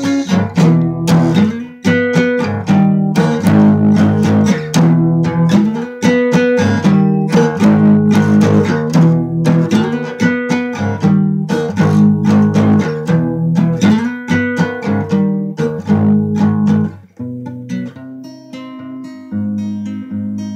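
Acoustic guitar strummed in a steady repeated chord pattern, dropping to quieter, lighter playing about seventeen seconds in.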